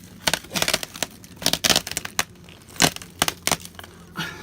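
Styrofoam ceiling insulation with wall paneling attached being pulled and broken out of an RV roof: an irregular run of sharp cracks and crunches, in clusters about every second.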